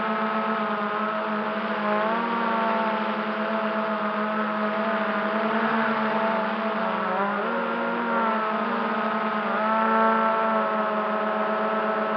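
MJX Bugs 3 quadcopter's brushless motors and propellers whining steadily, heard from the camera it carries, with a hiss of air over it. The whine shifts up and down in pitch a few times as the throttle changes, about two seconds in, around seven seconds and near ten seconds.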